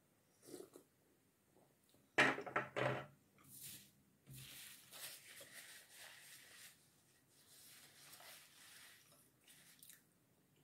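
Someone eating at a table: a brief cluster of loud knocks about two seconds in, then chewing and a paper napkin rustling against the mouth.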